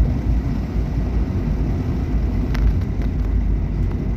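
Steady low rumble of a car's tyres and engine heard from inside the moving car on a paved mountain road, with a faint click about two and a half seconds in.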